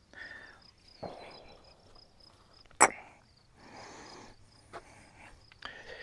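Light knocks and rattles as the band wheels of a Frontier OS27 sawmill are turned over by hand with the engine off, to check the blade's tracking. There is one sharp crack a little under three seconds in, the loudest sound.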